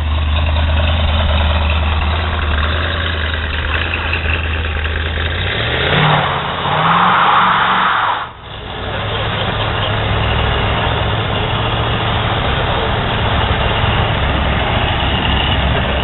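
Classic American car's engine idling with a deep low rumble, then revving in rising sweeps about five seconds in and pulling away hard with a loud rush of noise. After a brief dip, steady engine running continues.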